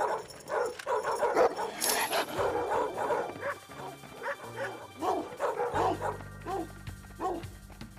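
A pack of dogs barking over and over, with background music under the barks; a low held note comes in about six seconds in.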